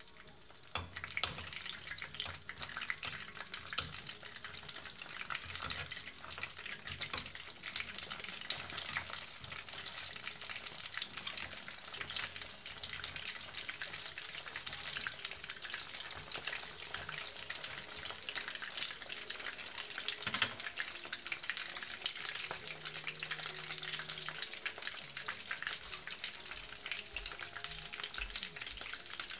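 Battered gimmari (seaweed-wrapped glass-noodle rolls) frying in shallow oil in a wok, a steady sizzle with dense crackle that grows louder about a second in. A couple of sharper clicks in the first few seconds come from metal tongs turning the rolls.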